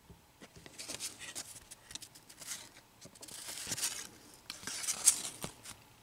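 Cardboard baseball cards being sorted by hand, card sliding and rubbing against card in a run of dry scrapes and flicks. It starts about a second in and has one sharp snap near the end.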